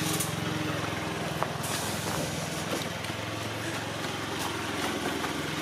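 Small motor scooter's engine running steadily as it is ridden, a low even hum under road noise.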